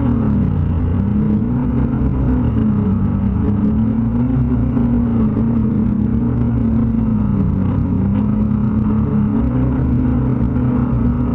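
Electric motors and propellers of an 800-size six-rotor hexacopter running in flight, heard from its onboard camera: a loud, steady buzz whose pitch swings down and back up every few seconds as the motors change speed.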